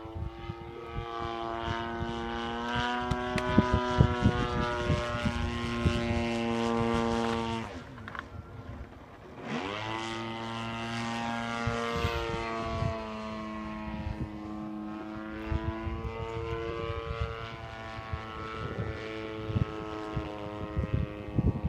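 RC airplane's DLE-55 single-cylinder two-stroke petrol engine and propeller running at a steady high throttle. The engine drops back about eight seconds in, then its pitch rises again and it runs on steady.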